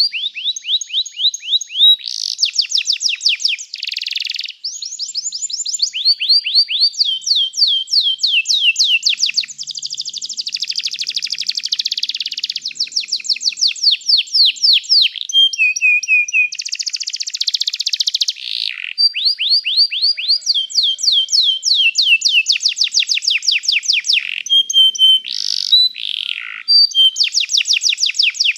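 Canary singing a long, unbroken song of rapid trills: runs of quick, high repeated notes, many sliding down in pitch, with the pattern changing every second or two.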